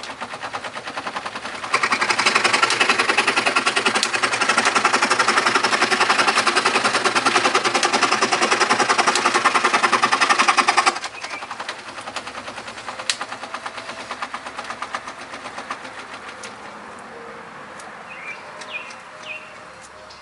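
Antique pedal-powered scroll saw running, its flywheels, connecting rod and blade slide working in a fast, even clatter. From about two seconds in it turns into a loud rasp, which cuts off sharply near eleven seconds. Fainter ticking follows as the mechanism slows, with a few clicks near the end.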